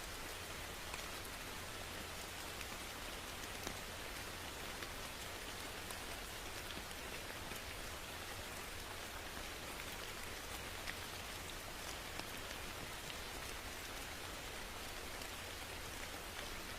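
Steady rain falling, an even hiss with many small drops tapping on a surface.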